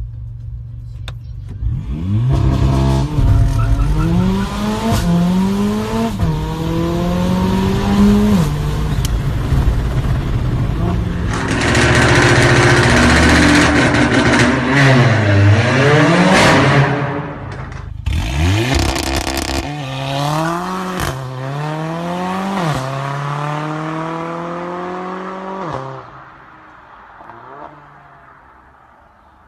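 Modified Mercedes-AMG A45's turbocharged 2.0-litre four-cylinder engine revved repeatedly from idle, with a long high-rpm hold in the middle, and exhaust crackles between revs. It drops back and falls much quieter near the end.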